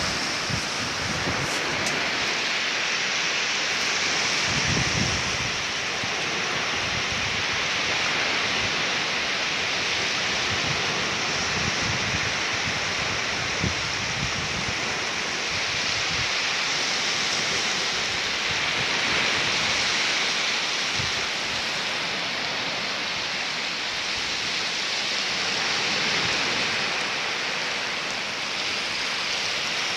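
Steady hiss of small waves breaking and washing up a sandy shore, swelling and easing gently every few seconds, with a few low rumbles of wind on the microphone.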